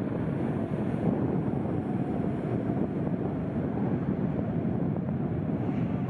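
Heavy shorebreak surf breaking on a sand beach: a steady low rumble of waves, with wind buffeting the microphone.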